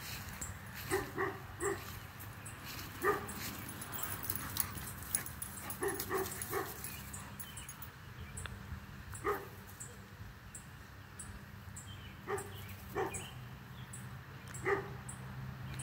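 Two dogs at play, giving short play barks and yips, singly and in quick bursts of two or three, about a dozen scattered through.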